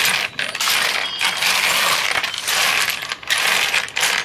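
A heap of small hard plastic toy pieces clattering as hands sweep and shuffle them across a cutting mat. The clatter comes in several long surges with brief pauses between.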